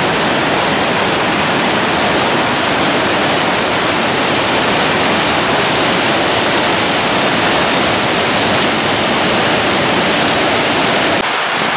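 Turbulent mountain river rushing over rocks in white-water rapids: a loud, steady rush of water that drops off sharply near the end.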